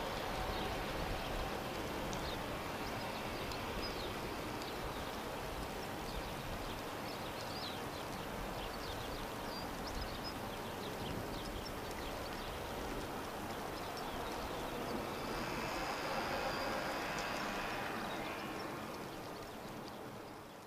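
Dassault Falcon 7X's three rear-mounted Pratt & Whitney Canada PW307A turbofans at taxi power, a steady rushing jet whine as the jet taxis away. About 15 s in a second, rising engine whine from another aircraft coming in to land joins it, and the sound fades out near the end.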